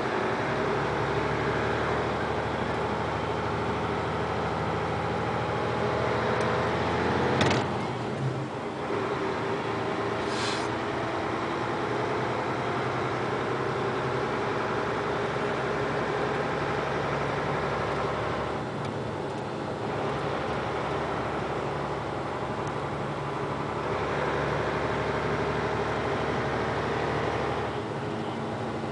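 Engine and road noise heard from inside a moving vehicle. The engine note shifts a few times as it drives, and there is a sharp click about seven seconds in.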